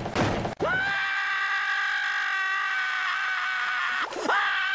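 A long, high-pitched human scream held on one pitch, starting about half a second in, breaking off with a quick downward swoop about four seconds in and then going on again.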